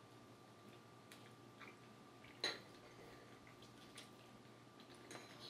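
Near silence while eating, with a faint steady hum, a few soft ticks and one light clink of a spoon against a dish about two and a half seconds in.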